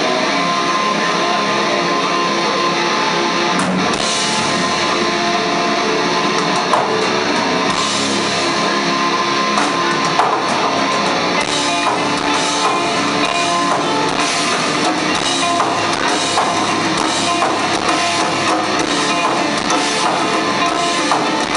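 A sludge/stoner metal band playing live, with electric guitars and bass ringing out over drums. The drum and cymbal hits come through more strongly and regularly from about halfway.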